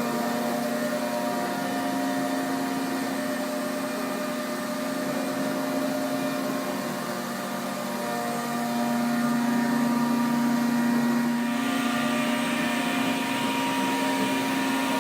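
CNC router running with its 10 horsepower Colombo spindle: a steady whine over a hiss. About eleven and a half seconds in, the hiss turns brighter and louder.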